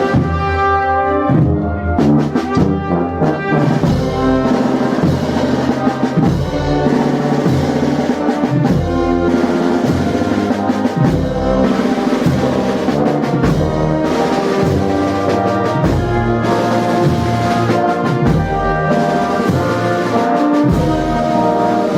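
Wind band playing a Holy Week processional march: trombones and trumpets carry the melody over drums.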